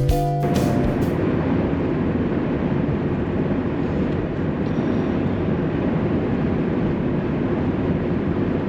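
Steady road and engine noise inside a vehicle's cabin while driving at highway speed, an even rumble. Guitar music cuts off in the first second.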